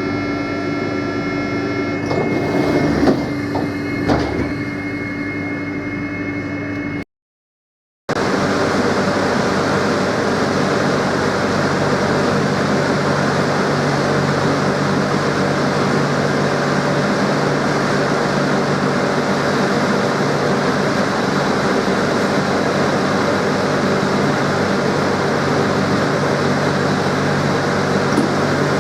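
A French train's door-warning buzzer (ronfleur) sounding as one steady buzzing tone, with two knocks a few seconds in, then cutting off. After a short silence comes the steady noise of a train with a low hum.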